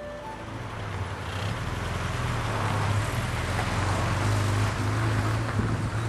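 Peugeot 304 Coupé S's four-cylinder engine running steadily as the car drives past over gravel, with tyre noise over the engine hum. It grows louder as the car comes close and eases off as it moves away.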